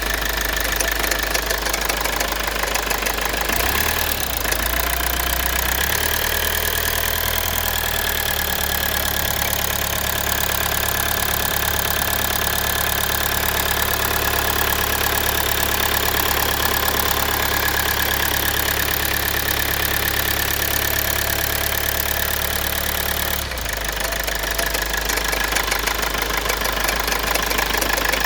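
Toyota Avensis T27's 1AD-FTV 2.0-litre four-cylinder turbodiesel running with a knock from the engine. The engine note shifts higher about four seconds in and drops back near the end.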